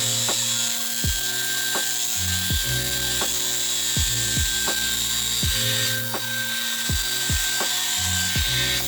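Redmond cordless vacuum cleaner running steadily with a high whine and hiss while picking up scattered rolled oats. Background music with a steady beat plays under it.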